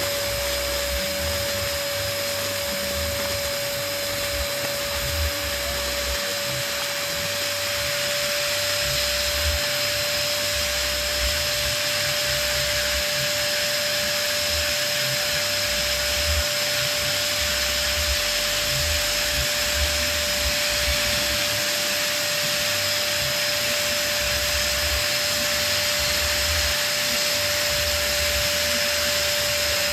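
Electric balloon pump running steadily, an even hum with a steady tone and a rush of blown air.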